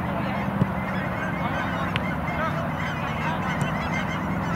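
Many short honking bird calls overlapping, faint over a steady low background rumble, with a couple of sharp knocks in the first two seconds.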